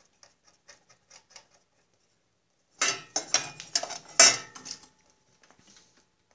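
Light clicks as a nut is run onto a starter solenoid terminal. About three seconds in comes a couple of seconds of loud clattering and scraping as wires with crimp connectors are pulled and handled against the mower's sheet-steel frame.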